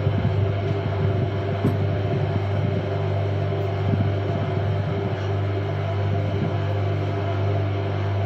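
Electric pottery wheel motor humming steadily while a metal trimming tool scrapes clay off the spinning teapot lid, with a few faint knocks.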